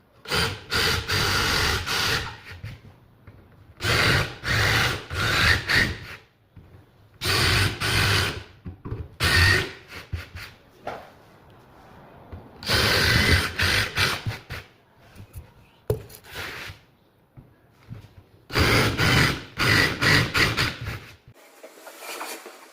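Power drill running into plywood in five bursts of about two seconds each, with short pauses between them.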